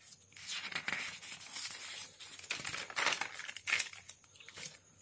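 Paper rustling and crinkling as the pages of a notebook are turned over, with a few louder crackles partway through.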